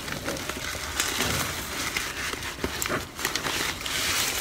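Rustling and crinkling of packaging being handled, with scattered light clicks.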